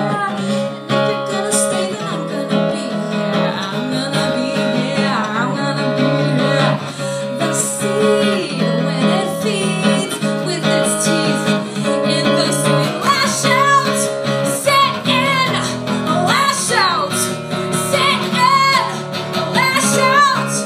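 Acoustic guitar strummed steadily, with a woman singing over it. Her voice is most prominent in the second half.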